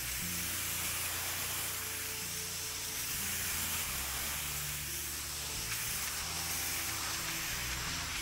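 Steady hiss of pressure-washer spray, with background music of slowly changing low notes beneath it.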